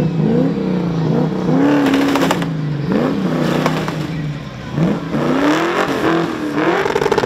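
Holden Commodore's engine revving hard during a burnout, its pitch rising and falling again and again, with a few revs held briefly near the top.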